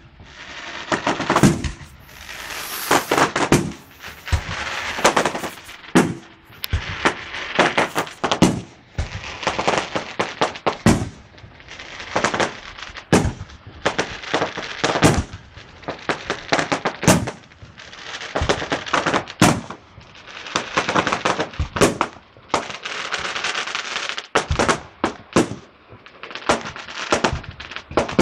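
Aerial fireworks display: a continuous barrage of sharp shell bursts, several a second at the peaks, with crackling between them, coming in waves that build and ease.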